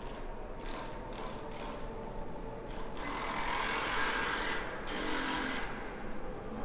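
Street traffic with a large road vehicle passing close: several short hisses, then a louder hiss about three seconds in that lasts nearly two seconds, and a shorter one after it, over a steady low hum.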